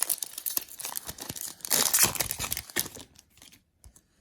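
A trading-card pack wrapper crinkling and being torn open. It is loudest about two seconds in and dies away about three seconds in.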